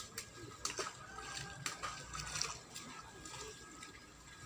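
Faint outdoor background at a fishing pond: distant chatter of the seated anglers and a water-like wash, with a few scattered sharp clicks.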